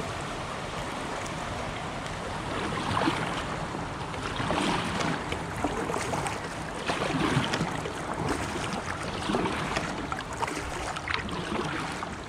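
Kayak paddle dipping and splashing in river water with each stroke, water dripping from the blades. The splashing swells and fades every second or two.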